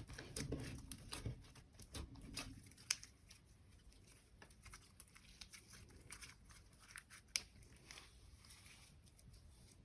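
Slime being squished and mixed by hand, making irregular sticky clicks and small pops, busier and louder in the first three seconds, then sparser and fainter.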